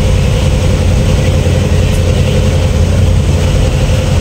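Boat engine running steadily under way, a loud low drone, over the hiss of water churning in the wake.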